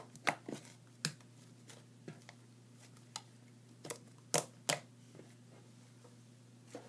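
Fluffy butter slime made with PVA glue and shaving foam, pressed and poked with the fingers, giving scattered sharp clicks and pops, the loudest pair about four and a half seconds in. A faint low hum runs underneath.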